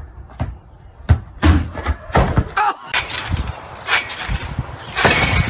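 A string of sharp thumps and knocks, the loudest about a second in and again half a second later, with a short voice in the middle and a loud rushing burst near the end.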